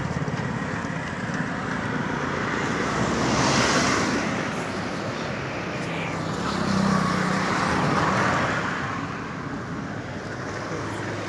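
Motor-vehicle traffic noise: engines and tyres passing, swelling twice, about a third of the way in and again past the middle.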